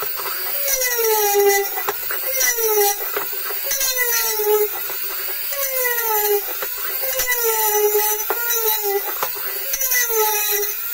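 Handheld rotary tool with a small polishing wheel whining against the rim of a copper bowl, its pitch sagging and recovering about every second and a half, with a scraping hiss as the wheel rubs the metal.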